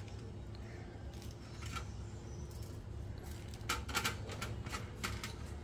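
Faint handling sounds of fresh green chillies being pressed open and filled with salt and turmeric over a steel tray: a few soft clicks, a short cluster of them about two-thirds of the way in, over a low steady hum.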